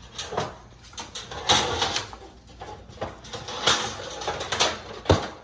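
Metal baking pans clattering and scraping as they are rummaged through and pulled from a stack in a kitchen cabinet, ending in a sharp knock about five seconds in.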